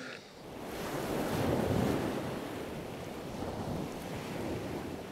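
Ocean surf washing onto a beach, swelling in over the first second and then going on steadily.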